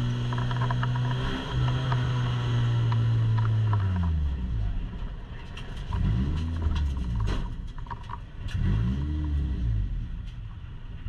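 Stock car's engine heard from inside the cockpit, holding a steady drone, then dropping in pitch about four seconds in as the throttle is lifted and the car slows. Two short blips of the throttle follow, about six and nine seconds in, with light rattles and clicks from the car's interior.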